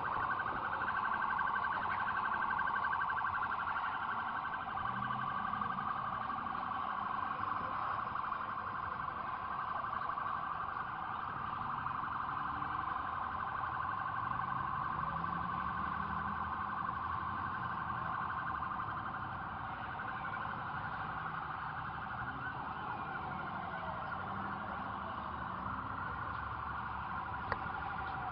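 An electronic alarm or siren sounding one steady, high tone that pulses rapidly and never breaks off. A single sharp click comes near the end.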